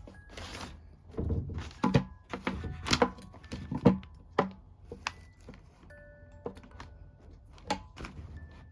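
Light background music of chime-like, glockenspiel-style notes, with a run of sharp knocks and clicks that are loudest in the first half.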